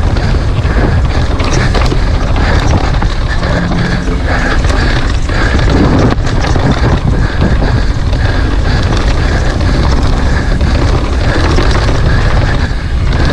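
Downhill mountain bike ridden fast over rough ground. Wind buffets the microphone in a constant low rumble, over the steady rattle and knocking of the bike and tyres.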